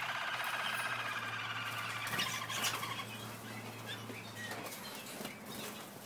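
German Roller canaries singing a rapid rolling trill, which stops about halfway through. Around two seconds in comes a flurry of wingbeats as birds fly about, followed by a few short chirps.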